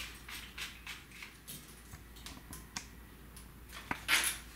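Small clicks and scrapes of a plastic shower brush head being screwed onto a metal shower hose fitting, with a louder short rasp about four seconds in as pliers grip the hose nut to tighten it.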